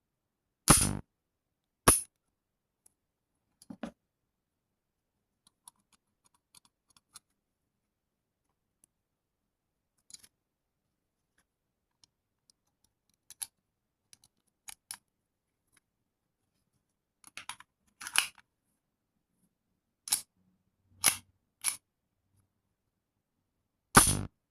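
Sharp mechanical clicks and clacks from handling a Zoraki 914 blank pistol, irregularly spaced: three loud ones (about a second in, two seconds in and near the end) and several lighter clicks in between.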